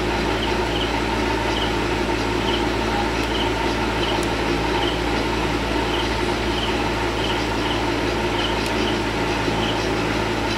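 A steady low hum of running machinery, holding one level throughout, with faint high chirps repeating about twice a second.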